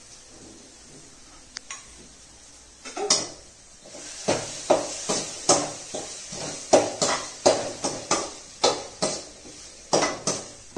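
A metal spatula scraping and knocking against a steel kadai as food is stirred, in repeated strokes about twice a second from about three seconds in. A single sharp tap comes about a second and a half in.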